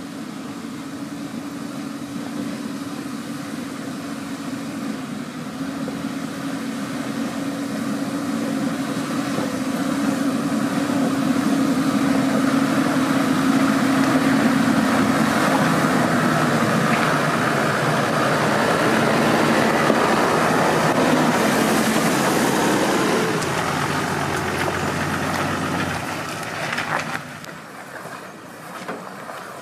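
Off-road 4x4's engine working under load, growing louder over the first half and holding loud. It then falls away sharply a few seconds before the end, with a few sharp knocks.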